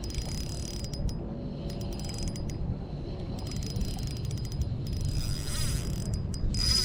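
Fishing reel being wound, with clusters of rapid clicking that come strongest about five seconds in and again near the end, over a steady low rumble.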